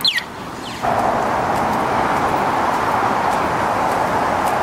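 Steady road-traffic noise from a busy multi-lane road, starting abruptly about a second in. It is opened by one high, quickly falling chirp.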